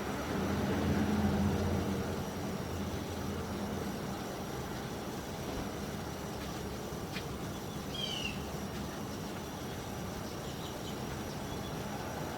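Steady low motor hum that swells over the first two seconds and then settles, with a short high chirp about eight seconds in.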